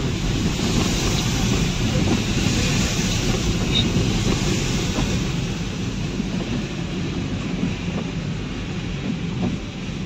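Car moving over a rough, broken mountain road, heard from inside: a steady low rumble with occasional knocks from the bumps.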